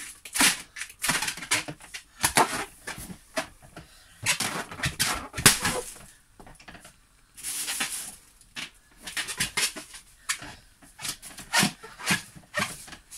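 Inflated rubber balloons squeaking and rubbing in uneven bursts as a person sits on them and squeezes them with his hands, trying to make them pop. The loudest burst comes about five and a half seconds in.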